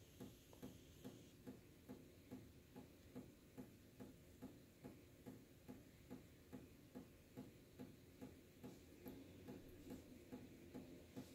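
Cat lapping water from the thin stream of a reverse-osmosis drinking-water faucet: faint, even clicks about two to three times a second.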